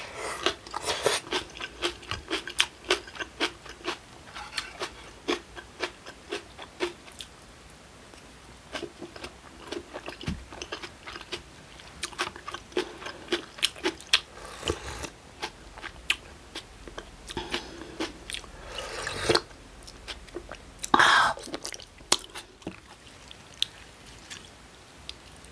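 Close-miked eating of a cold acorn-jelly rice bowl with kimchi and vegetables: chewing with a run of crisp crunches. There is a short lull about a third of the way in and two longer, louder noises later on.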